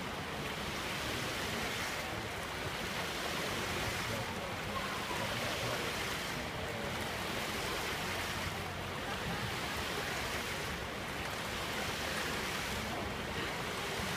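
Rows of ground-level fountain jets spraying and splashing onto wet paving, a steady hiss of falling water whose high end thins briefly about every two seconds.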